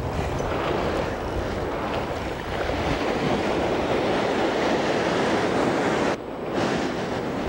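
Ocean surf washing up a sand beach: a wave breaking and foamy water rushing over the sand, a steady rushing noise that dips briefly about six seconds in, with wind buffeting the microphone.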